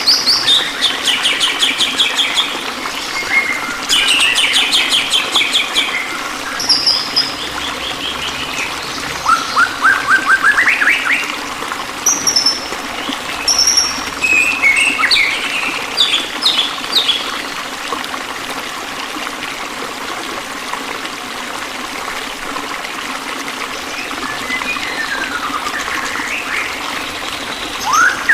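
Several songbirds chirping and trilling, with quick rising sweeps and rapid repeated notes, over a steady hiss of running water. The calls are densest in the first dozen seconds and sparser later on.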